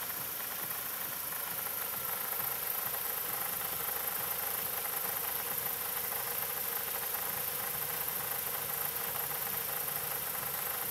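Mercedes-Benz M111.970 2.3-litre inline-four petrol engine idling steadily, heard close up under the open bonnet.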